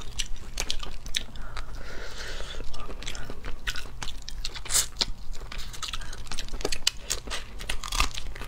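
Eating boiled crayfish close to a clip-on microphone: biting and chewing, with many sharp clicks and crackles as the shells are cracked and peeled.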